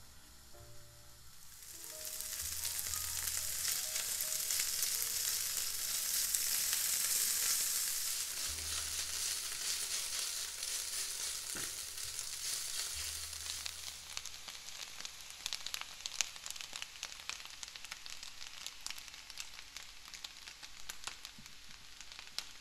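Food sizzling in hot oil in a pan. It starts suddenly about two seconds in, is loudest for several seconds, then settles into a lighter sizzle with frequent crackles and spits.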